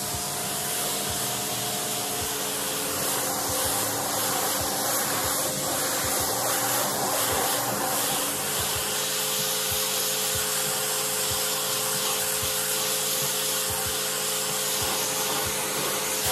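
Pressure washer running steadily, its lance spraying a water jet onto a muddy EVA foam car mat, with a steady hum of the pump motor under the spray.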